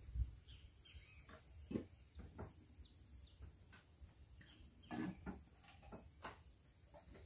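Faint outdoor ambience: a few scattered soft knocks and clinks, with a few short bird chirps in the middle.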